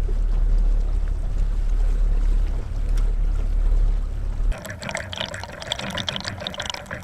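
A steady low rumble, then, after a sudden change about four and a half seconds in, water splashing and trickling.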